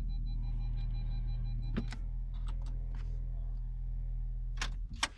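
Steady low machine hum with a faint pulsing high whine on top. A click about two seconds in ends the whine, then two more clicks come near the end and the hum cuts off: the abnormal noise being recorded.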